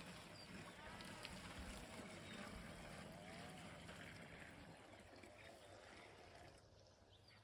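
Near silence: faint background noise with a low hum that fades out about two-thirds of the way through.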